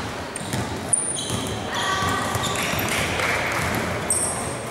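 Basketball game on a hardwood court: sneakers squeaking in short chirps as players run and cut, a basketball bouncing, and voices calling out.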